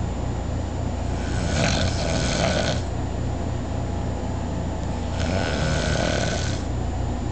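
A person snoring in their sleep: two long snores, each about a second and a half, a few seconds apart, over a steady low rumble.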